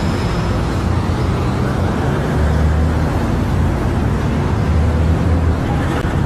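Steady low rumble of road traffic and vehicle engines.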